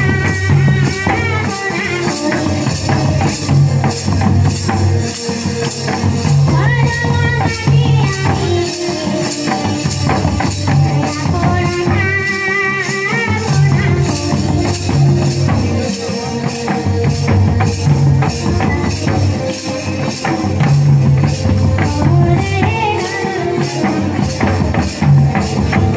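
Adivasi folk music: barrel-shaped hand drums beat a steady, driving rhythm under a constant jingling of cymbals, with a sung melody rising and falling over it.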